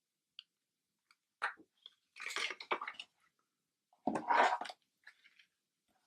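Card stock panels being handled and pressed down: short rustling scrapes of paper in three main bursts, the longest about a second, with a few small clicks between.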